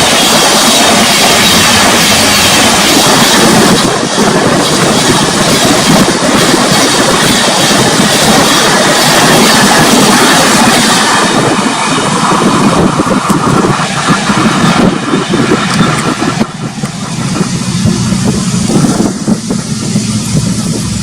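Train running along the track, a loud steady rumble with wheel clatter. The sound eases a little about halfway through, with sharper knocks near the end.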